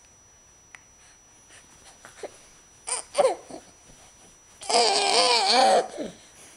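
Baby vocalizing: a few short babbling sounds about three seconds in, then a loud squeal lasting about a second, its pitch wavering up and down.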